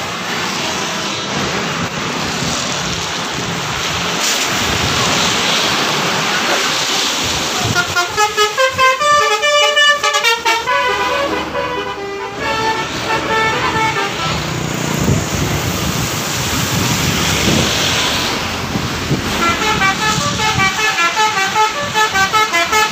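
Road traffic passing, then a bus's 'telolet' musical horn playing a fast melody of rapidly changing tones about eight seconds in, lasting several seconds. Another telolet melody starts near the end.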